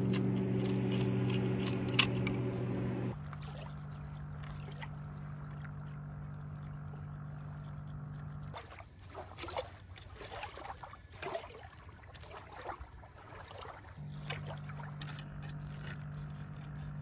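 A steady low hum with several even tones runs under knife cuts and scrapes on a plastic cutting board as fish are cleaned. The hum drops in level about three seconds in, stops for several seconds in the middle, where the short cutting and scraping sounds are clearest, and comes back near the end.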